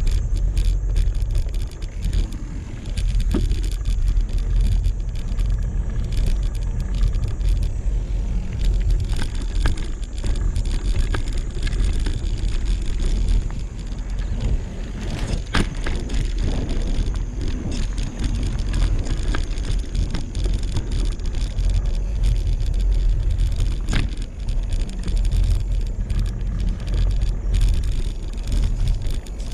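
Mountain bike riding over a dirt trail: knobby tyres crunching on the dirt, with the chain and frame clicking and rattling over bumps and a steady low rumble on the camera microphone. A louder clack comes about halfway.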